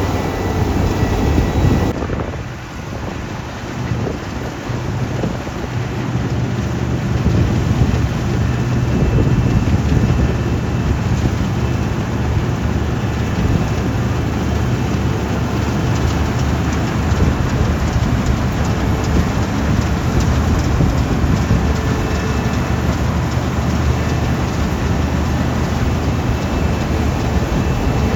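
Large diesel farm machinery running steadily: a low engine drone under a rushing noise, with an abrupt cut about two seconds in.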